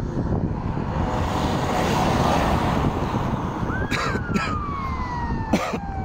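Wind rushing across the phone microphone as a steady, loud noise. About four seconds in, a distant siren rises quickly and then winds slowly down, and a few sharp knocks sound.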